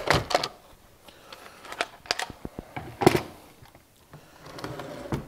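Hands-on work on a Stihl MS391 chainsaw: a run of clicks and knocks from a hand tool and the saw's plastic parts, with light scraping between them. Sharp knocks come at the start and about three seconds in.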